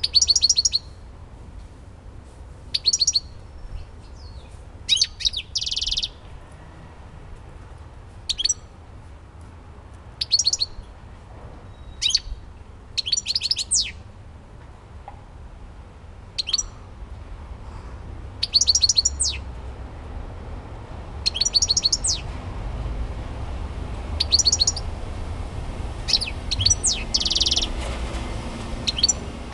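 European goldfinch singing in short bursts of rapid, high twittering notes, one every second or two, a few of them ending in a buzzy note.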